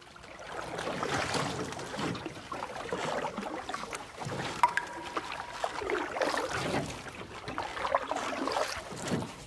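Water splashing and lapping, an irregular run of small splashes and drips.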